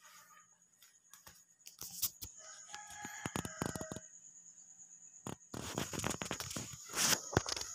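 A rooster crows in the background about three seconds in, then a loud burst of splashing and scraping follows near the end as a mouse struggles in the water of a spin-mop bucket.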